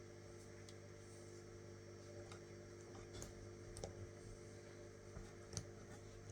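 Near silence: a steady low room hum with a few faint, scattered clicks from small handling noises.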